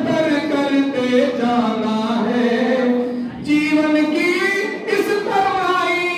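A man singing a Hindi song unaccompanied into a microphone, holding long drawn-out notes, with a brief break for breath about three seconds in.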